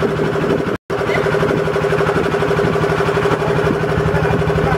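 Engine of a small wooden river boat running steadily under way, a constant drone with a fast, even pulse. The sound cuts out for a split second about a second in.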